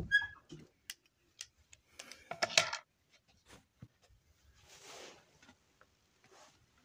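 Quiet movement of a person in a dark room: scattered soft clicks and knocks, with a louder rustle about two and a half seconds in and a softer one around five seconds.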